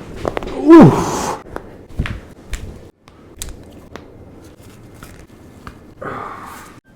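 A person's short vocal cry, falling steeply in pitch, about a second in. Scattered light clicks and knocks follow, and a breathy sigh comes near the end.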